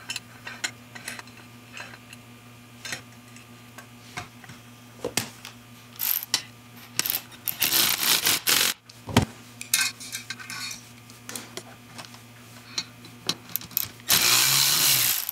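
Hand-levered valve spring compressor working on the valve springs of an aluminium LS cylinder head: scattered sharp metal clicks and ticks as the tool is seated and the springs are compressed, with two longer rough noises, about halfway and near the end.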